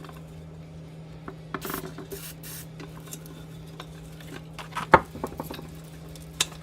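Metal clinks, scrapes and knocks from a rusty Ford Model A headlight being worked apart by hand, its spring-loaded lens-retaining clip being swung aside, with one sharp loud knock about five seconds in. A steady low hum runs underneath.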